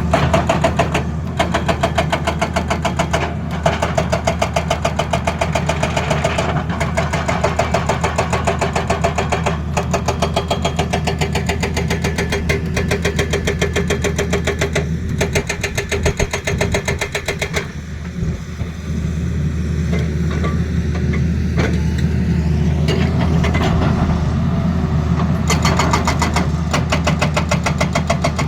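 Excavator's diesel engine running, with a rapid, even knocking rhythm over a steady low hum that eases for a few seconds past the middle and then comes back.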